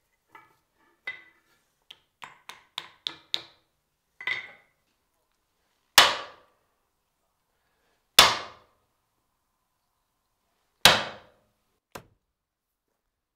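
Hammer blows: a run of quick, light taps over the first few seconds, then three heavy strikes about two to three seconds apart, each dying away over about half a second, and one last light tap.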